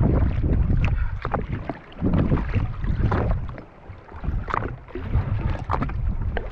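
Gusty wind buffeting the microphone with water splashing and slapping around a jet ski, in uneven gusts with many short sharp splashes.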